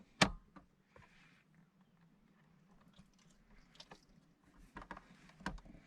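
Small clicks and handling noises from parts of an Audi 80 instrument cluster being fitted back together: one sharp click just after the start, then a few softer clicks near the end.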